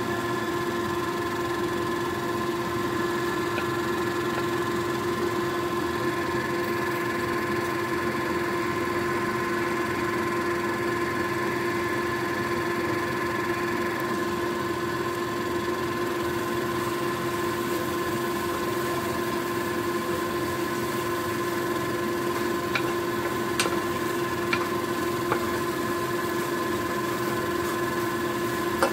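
A steady machine hum with several fixed tones runs throughout over a light hiss. Near the end a few light clicks sound as a spatula taps and scrapes the non-stick pan while scrambling the egg.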